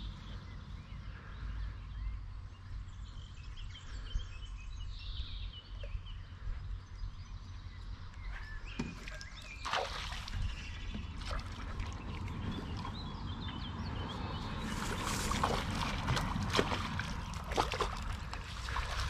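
A hooked trout splashing at the water's surface as it is reeled to the bank and netted. The first half is quieter, and the splashes come from about halfway, growing louder and more frequent near the end.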